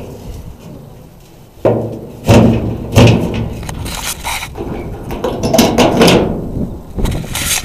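Rusty sheet-steel engine hood of a wind machine being lowered and shut: loud metal clanks and thuds, the heaviest two about two and three seconds in, followed by irregular knocking and clattering of the metal.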